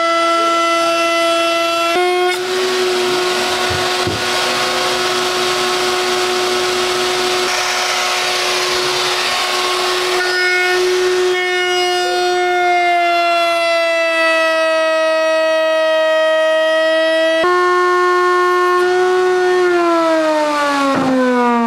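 Table-mounted wood router running with a steady high whine. From about two seconds in, it cuts into a piece of wood, adding a rough hiss for several seconds. Near the end the whine falls in pitch as the router spins down.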